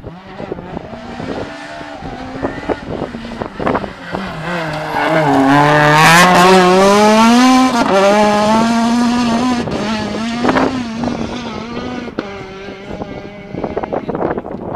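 Rally car engine approaching and passing at speed, its pitch climbing and dropping back sharply twice as it shifts gear. It is loudest from about five to eight seconds in, then runs steadier and fades.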